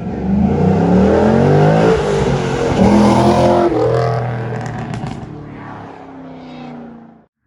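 Holden VF Commodore V8 engine revving hard, rising in pitch twice, then settling lower and fading. The sound cuts off suddenly near the end.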